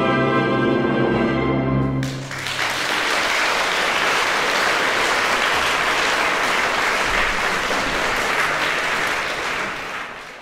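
A man's final sung note, held steady, breaks off about two seconds in. Audience applause follows and fades away at the very end.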